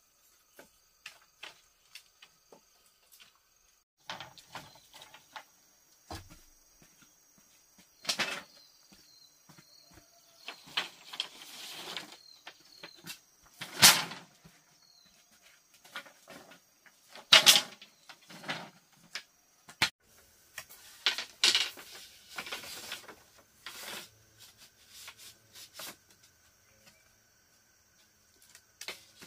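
Bamboo being handled and worked: an irregular run of knocks, clacks and scrapes, with two sharp knocks near the middle standing out. A steady high insect drone runs underneath.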